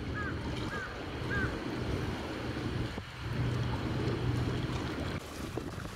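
Wind buffeting the microphone over the steady low hum of a boat engine on the water. A quick run of short, high, repeated chirps ends about a second and a half in.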